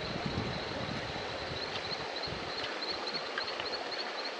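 Steady rushing of river water, with a faint high-pitched chirp repeating several times a second over it.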